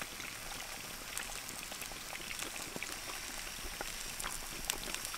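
Duck meat frying in rendered bear fat in a frying pan: a steady sizzle with many small scattered pops and crackles.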